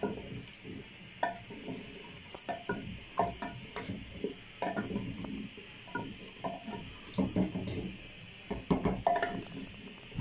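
Wooden spatula stirring a thick mutton curry in an earthenware handi, scraping and knocking irregularly against the clay pot, over a steady hiss.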